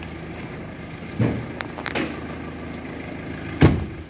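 Renault Laguna engine idling steadily, with a few knocks and one loud sharp knock near the end; the engine hum dies away just after it as the engine is switched off.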